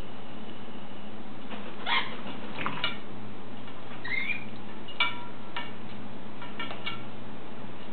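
Parrot giving a string of short, sharp squeaks and chirps, about eight over five seconds, one of them a whistle that rises and falls, over a steady low hum.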